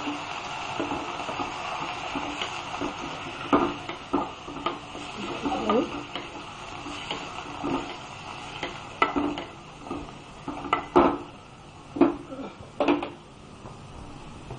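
Raw chicken pieces being stirred into fried onions in an aluminium pot, with irregular knocks and scrapes of the utensil against the metal. The knocks are loudest and most frequent in the second half.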